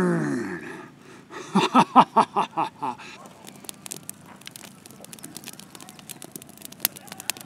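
Kindling sticks and newspaper crackling and popping as a newly lit campfire catches, with sharp little pops coming more often toward the end. A man's drawn-out word at the very start and a burst of laughter about a second and a half in.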